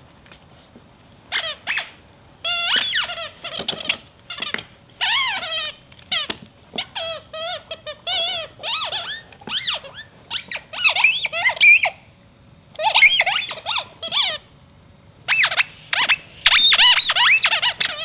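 A squeaky dog toy squeaking over and over as an English Bull Terrier chews it, in quick irregular runs of wavering high-pitched squeaks.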